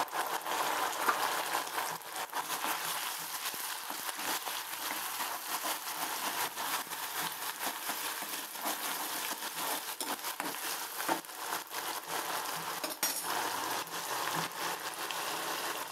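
Sliced onions with ginger-garlic and onion paste sizzling in hot oil in a wok, with a metal spatula scraping and clinking against the pan as they are stirred.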